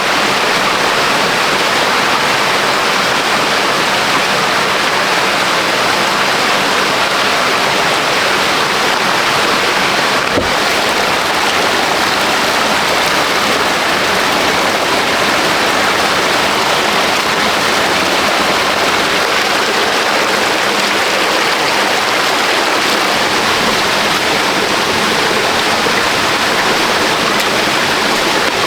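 Loud, steady rush of fast-flowing water from waterfall rapids, unchanging throughout, with one faint knock about ten seconds in.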